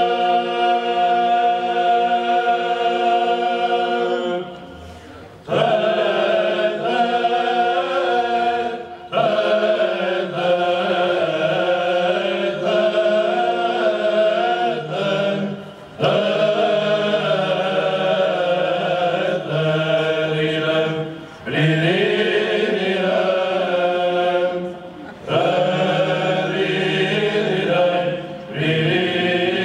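Male Byzantine chant choir singing an ornate melody in plagal first mode over a steady low held drone (ison). It opens on a long held note, breaks off briefly about five seconds in, then moves on in winding phrases with short breaths between them.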